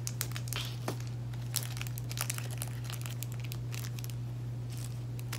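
Scattered small clicks and crinkles of resin diamond-painting drills shifting in a plastic drill tray as it is handled and tilted, over a steady low hum.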